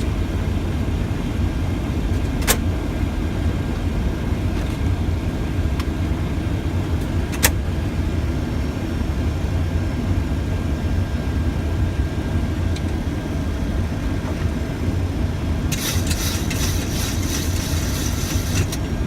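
Steady low rumble of airflow and engines on a Boeing 737 flight deck during approach. Two sharp clicks come about 2.5 and 7.5 seconds in, and a few seconds of crackly hiss come near the end.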